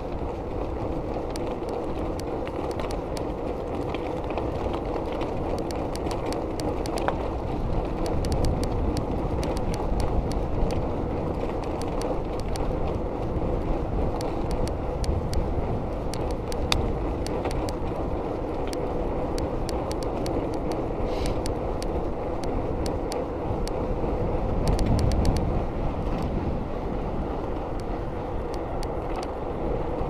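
Bicycle ridden at speed on asphalt: steady tyre rumble and wind noise, with many small scattered clicks and rattles from the bike. It swells briefly louder about 25 seconds in.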